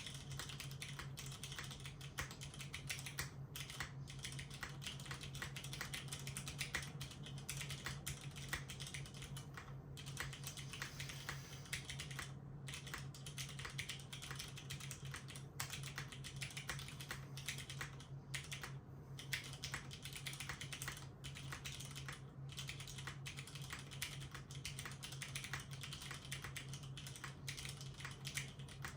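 Continuous fast typing on a mechanical keyboard with unlubed Cherry MX Brown (Hyperglide) tactile switches on 65 g springs, an aluminium plate in an o-ring mount, and GMK keycaps. It makes a steady stream of key clacks with a few short pauses.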